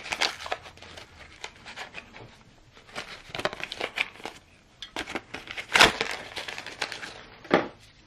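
Cellophane shrink-wrap crinkling and crackling as it is peeled off a carded Pez parrot whistle dispenser, with irregular small clicks of plastic being handled. A louder crackle comes about six seconds in, and another shortly before the end.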